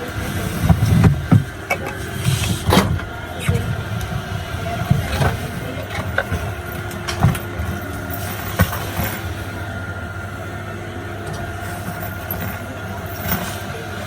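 Car engine running with road noise heard from inside the cabin: a steady low hum with several short knocks and bumps.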